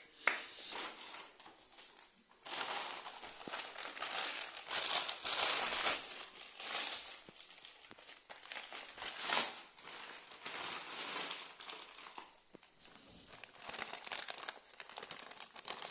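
Plastic courier mailer bag crinkling and rustling in irregular bursts as it is handled and folded.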